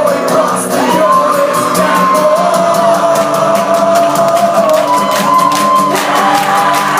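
A band playing live in a concert hall: a held, gliding sung melody over drums and guitars, with the crowd shouting along.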